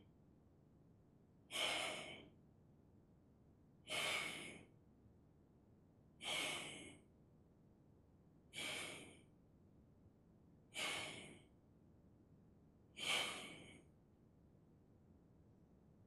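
A person's forceful out-breaths, six of them about two and a half seconds apart, each a short rush of breath that starts suddenly and fades away, in time with a slow repeated arm movement.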